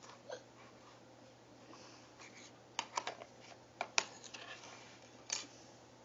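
Faint, scattered clicks and taps of plastic Play-Doh tubs and tools being handled, with a small cluster in the middle and one more near the end.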